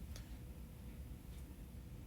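Two faint small clicks, about a second and a quarter apart, from a small screwdriver working the tiny screws beside an iPhone 11's Lightning port, over a low steady hum.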